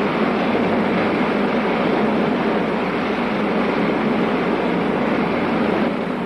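Steady rushing roar of a rocket ship's engine, a sound effect on an old film soundtrack, even throughout and easing slightly near the end.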